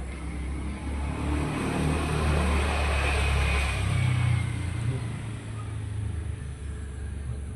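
A motor vehicle passing by: engine rumble and road noise grow louder, peak about three to four seconds in, then fade.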